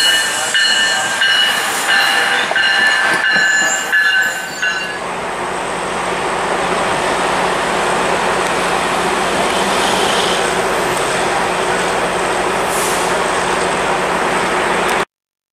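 Passenger train wheels squealing on a curve, several high steady tones over the first four seconds or so, followed by a steady rolling rumble and hiss with a low hum from the trains on the curved track. The sound cuts off suddenly near the end.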